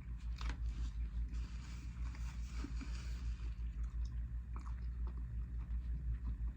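Close-miked chewing of a chicken sandwich topped with crunchy Takis chips, over a steady low hum.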